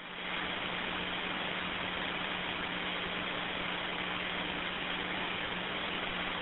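Steady radio hiss with a low, even hum over an open two-way radio channel while no one is talking.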